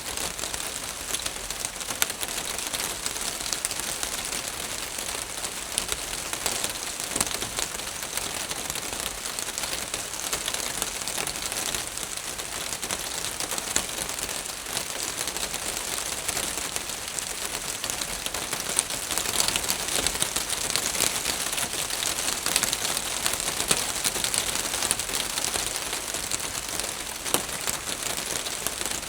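Rain falling steadily on a roof: a dense, even patter of drops with many small sharp hits on the roof surface.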